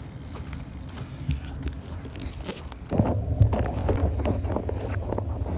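Wind rumbling on a phone's microphone as it is carried along on a moving scooter, with its wheels rolling over concrete and a few clicks and knocks. The rumble gets louder about three seconds in.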